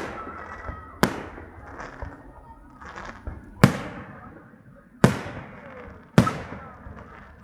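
Aerial fireworks shells bursting: about four loud sharp bangs, one every second or so, each trailing off in a fading echo, with fainter pops between them.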